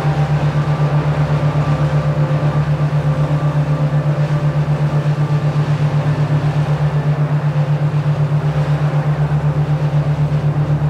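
Steady low electronic tone pulsing evenly about five times a second, a binaural-beat tone, with faint sustained higher tones over a soft hiss.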